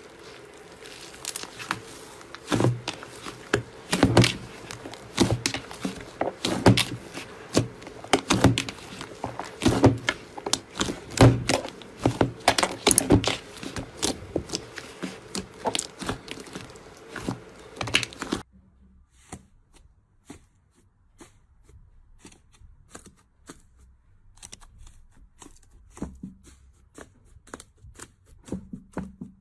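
Slime being pressed and squeezed by hand, making quick irregular clicks and pops with soft thumps. About 18 seconds in, it cuts to a much quieter stretch of fainter clicks.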